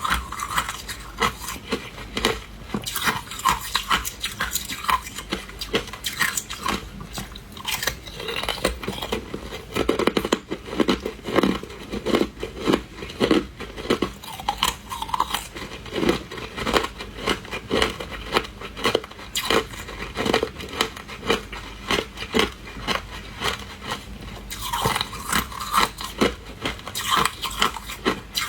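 A person biting and chewing hard ice, making many sharp crunches and cracks in quick, irregular succession.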